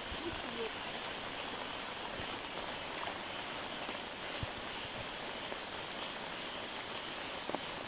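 Steady rain falling on wet ground and shallow muddy water: an even hiss with a few faint ticks of drops.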